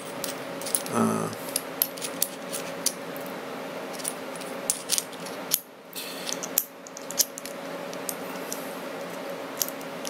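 Small metal clicks and taps, irregular and scattered, as a quick-release plate is handled and slid into a Falcam F38 quick-release base.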